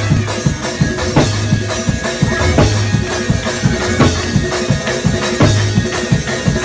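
Fast, up-tempo music with a busy, driving drum beat over a bass line.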